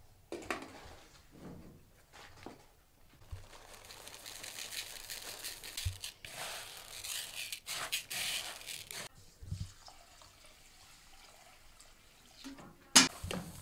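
Dry rice and bulgur stirred by hand in a plastic bowl: a rustling hiss of the grains for several seconds in the middle, loudest toward its end. A single sharp knock near the end.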